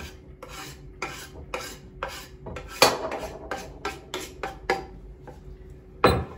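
Knife blade scraping chopped parsley off a wooden cutting board into a ceramic bowl: a quick series of short scrapes, about two or three a second, with a sharper knock near the end.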